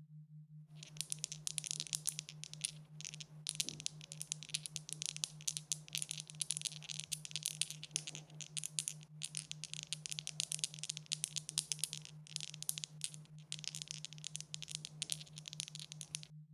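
Dice rattling together in rapid, dense clicking for about fifteen seconds, broken by a few short pauses, as when dice are shaken. A steady low hum runs underneath.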